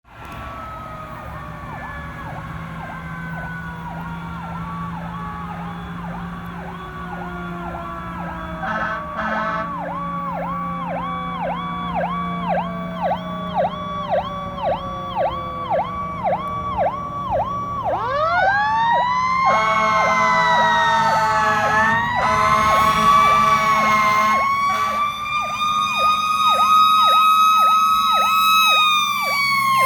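Fire engine sirens: one wail slowly falls in pitch through the first half, then climbs again about two-thirds of the way in and wavers up and down, over a second siren yelping at about one and a half cycles a second. Air horn blasts come briefly near the one-third mark and again a few seconds after the wail climbs.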